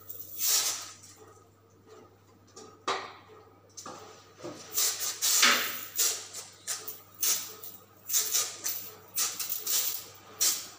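Pesticide spray wand hissing in short, repeated squirts of cockroach spray, one burst near the start, a lull, then a quick run of bursts from about halfway through.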